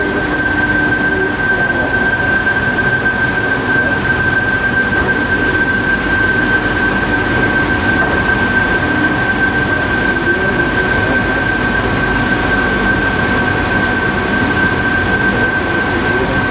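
POREBA TSR-100 crankshaft turning lathe running steadily: a continuous mechanical rumble with a steady high whine over it.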